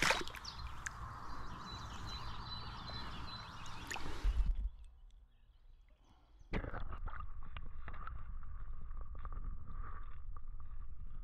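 Water sloshing as a carp is let go from a landing net. After a near-silent gap of about two seconds, muffled underwater sound with many small clicks follows, picked up by a submerged camera.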